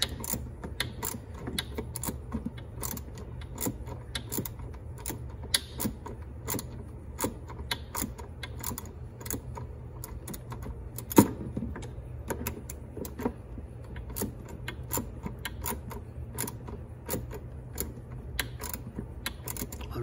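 Socket wrench on a short extension clicking in short irregular runs as a 3/8 bolt is worked by hand, with one louder metallic knock about eleven seconds in. A low steady hum runs underneath.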